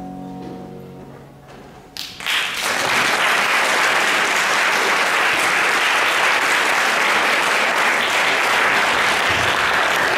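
A final piano chord rings and fades away. About two seconds in, the audience starts applauding, and the applause stays loud and steady.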